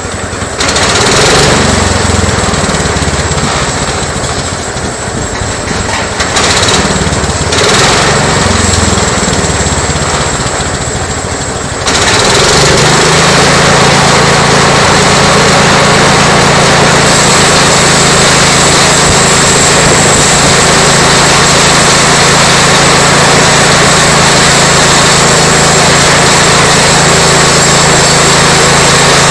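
A homebuilt bandsaw mill's 12 HP engine driving the band blade. For the first dozen seconds its speed rises and falls in surges. About twelve seconds in it gets louder and settles into a steady, hard-working pitch while the carriage is pushed through the cut.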